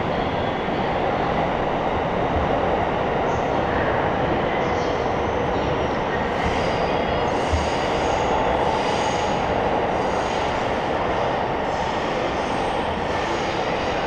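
Electric train running on the rails, a steady loud rumble, with a faint high wheel squeal through the middle.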